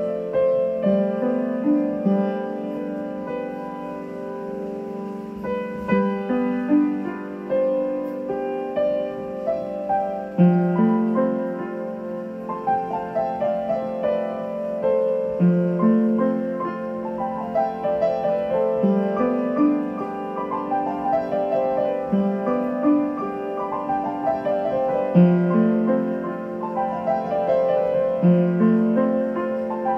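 Solo piano music: gentle broken chords, each starting on a low note and climbing upward, repeating every few seconds.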